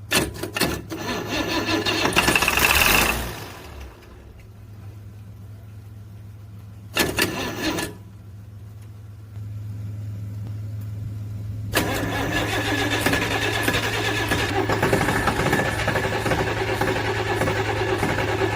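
International DT360 inline-six diesel engine hard to start: it cranks for about three seconds and stops, cranks briefly again about seven seconds in, then from about twelve seconds in settles into a steady running sound as it fires.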